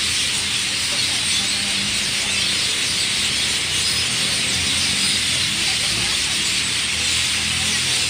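A dense, steady chorus of many small birds chirping together in a tree: a flock's evening roosting chatter. A low hum runs underneath.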